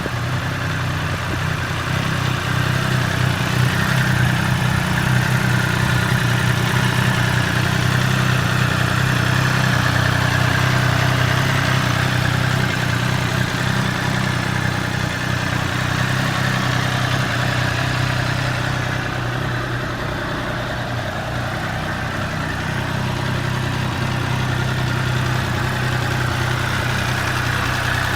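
Triumph Daytona 765 Moto2's three-cylinder engine idling steadily through its exhaust, with no revs.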